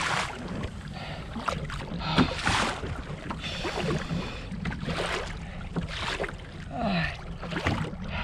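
Sea water slapping and splashing against the plastic hull of an Ocean Kayak Trident 13 fishing kayak in irregular surges, over a steady low rush of wind on the microphone.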